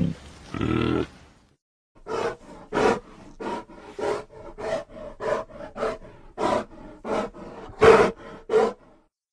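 Giant red panda creature's vocal sound effects: one short call, a brief pause, then about a dozen short calls in quick succession, roughly two a second.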